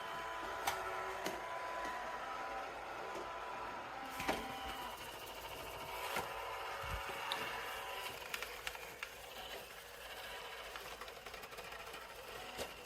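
iRobot Roomba j7+ robot vacuum running: a steady whir of its motors with several high tones, broken by scattered clicks and knocks.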